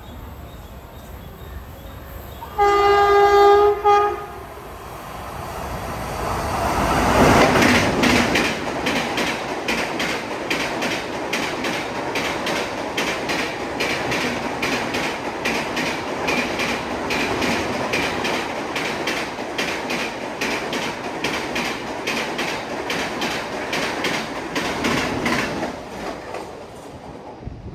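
Rajdhani Express sounding one short horn blast about three seconds in, then rushing past at speed, its wheels clattering over the fishplate rail joints in a fast, even rhythm that fades near the end.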